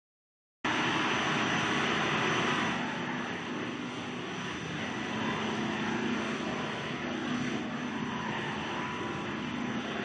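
Plastic baler twine production line running, its bobbin winders spinning: a steady mechanical drone with a thin high whine running through it. It cuts in abruptly under a second in and eases off slightly after about three seconds.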